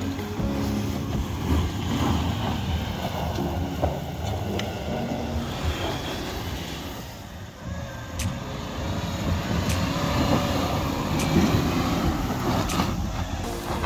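A motor vehicle running, a steady low rumble with shifting engine tones and a few faint clicks.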